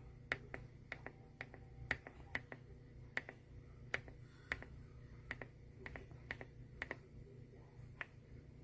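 Keys being pressed at a slow, uneven pace on a YUNZII C75 mechanical keyboard with linear switches, giving separate sharp clacks about two a second.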